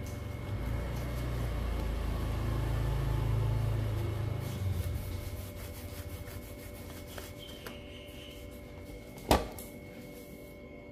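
Banana leaf rustling with a low handling rumble as it is rolled and folded around a rice parcel. About nine seconds in, a single sharp knock as the wrapped parcel is set down in an aluminium steamer pot.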